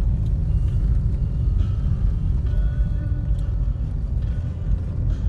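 Steady low rumble of a moving taxi, engine and road noise heard from inside the cabin, with faint music underneath.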